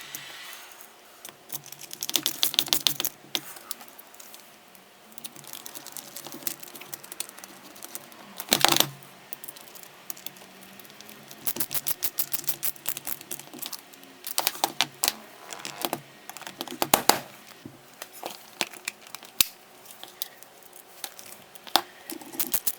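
Reassembling a Milwaukee Fuel hammer drill: short runs of rapid, even clicking from parts and screws being worked into the housing. Louder clatters come about 8 and a half seconds in and again near 17 seconds.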